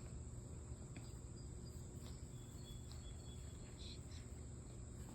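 Faint steady high-pitched drone over a low rumble, with a few soft clicks scattered through it.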